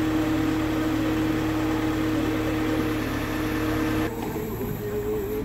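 Engine of a truck-mounted aerial platform running steadily, an even hum with a hiss over it, which cuts off abruptly about four seconds in.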